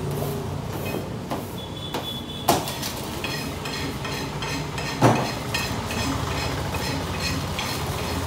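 Long knife filleting an Asian sea bass on a wooden chopping block: two sharp knocks a few seconds apart, then a run of quick rasping strokes as the blade works along the fish, over a steady low rumble.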